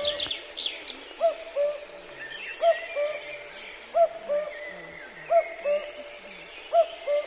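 Common cuckoo calling its two-note "cu-ckoo", higher note then lower, repeated about every second and a half, with faint songbirds singing behind it.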